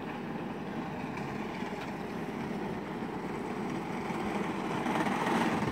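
A small go-kart running on the asphalt, a steady motor-and-wheel noise that grows louder near the end as the kart comes closer.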